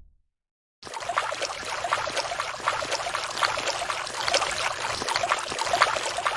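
Water running and babbling like a stream, a steady splashy trickling sound that cuts in abruptly about a second in after a moment of silence.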